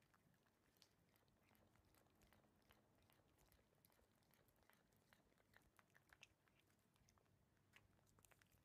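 Abyssinian cats licking and smacking their lips over a lickable paste treat: faint, quick wet clicks, more of them in the second half.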